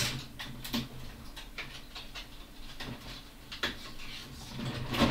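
Irregular light clicks and scratches of small hand tools being handled at a workbench, with one sharper click a little after halfway and a louder knock at the very end.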